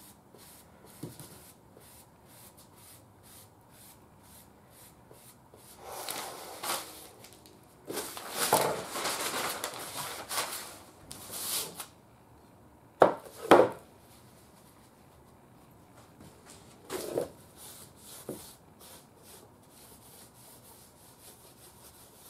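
A rag wiping and rubbing a small Philco wooden radio cabinet with lacquer thinner to clean off dirt and paint spatter, in two spells of rubbing with the longer one in the middle. Two sharp knocks follow about thirteen seconds in, with lighter knocks a few seconds later.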